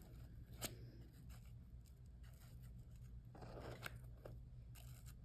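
Near silence over a low steady hum, with a faint click about half a second in and soft rustling of fur being pressed and held in place by hand around three and a half to four seconds in.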